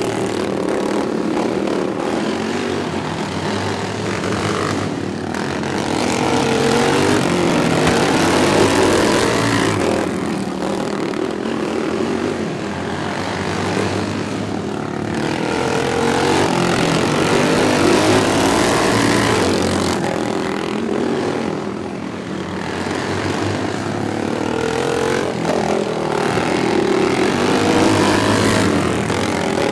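Several racing lawn mowers' small engines running at full throttle, their pitch rising and falling through the corners. The sound swells roughly every ten seconds as the pack comes past.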